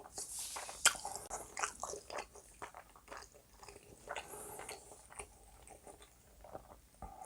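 Close-miked chewing of food, a run of irregular wet mouth clicks and smacks, with one sharper click a little under a second in.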